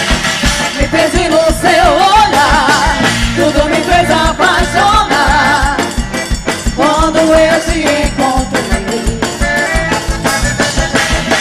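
Upbeat forró music for a quadrilha dance: a steady low drum beat under a wavering melody line.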